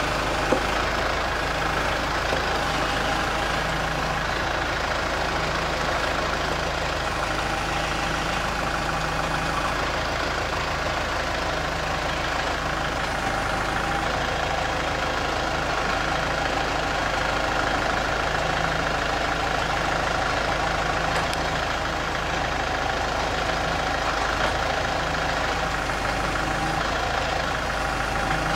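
Kubota L4701 tractor's diesel engine running steadily, with one brief knock about half a second in.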